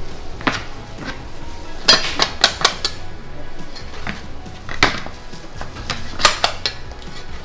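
Cleaver chopping a roll of dough on a plastic cutting board: sharp, irregular knocks, with a quick run of about six about two seconds in and single knocks after.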